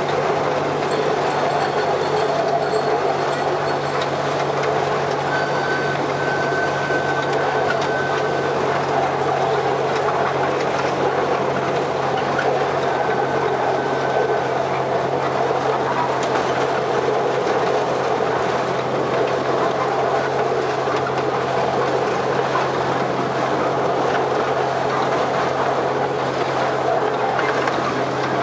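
Miniature railway locomotive hauling its train at a steady pace: a constant motor drone with the rumble and rattle of wheels on the track. A faint high squeal comes twice, about five seconds in and again around thirteen seconds.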